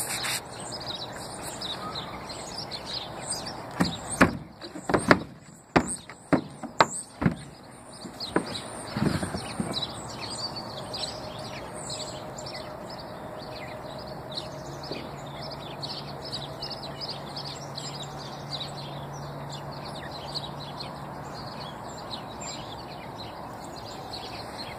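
Small birds chirping and twittering throughout. About four seconds in comes a run of loud sharp knocks and bumps lasting a few seconds, and about halfway through a faint low steady hum comes in for several seconds.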